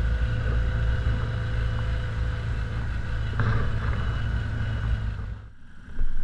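Side-by-side UTV engine running steadily at low speed, heard from on board. About five seconds in it drops away and a different vehicle engine comes in.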